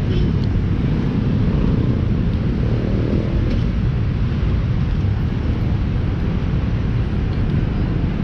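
Steady low rumble of outdoor city ambience, an even haze of noise with no distinct events.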